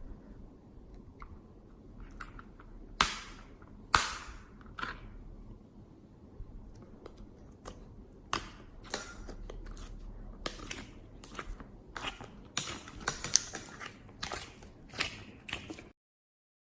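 Slime being squeezed and worked by hand, giving an uneven run of sharp clicks, pops and crackles, with two loud snaps about three and four seconds in. The sound cuts off abruptly near the end.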